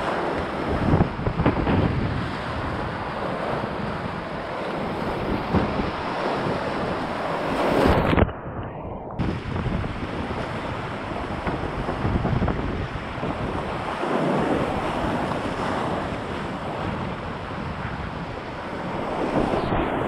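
Rushing whitewater of a river rapid heard from a kayak, mixed with gusty wind buffeting the microphone. The sound goes muffled for about a second near the middle.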